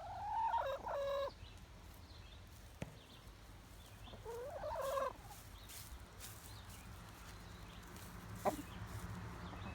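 Rhode Island Red rooster crowing twice, two short pitched crows about four seconds apart, each rising and then stepping down in pitch. A sharp click sounds about eight and a half seconds in, over a steady low hum.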